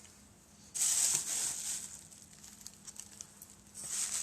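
Rustling and crinkling of packaging being handled, in two spells: a longer one starting about a second in and a shorter one near the end.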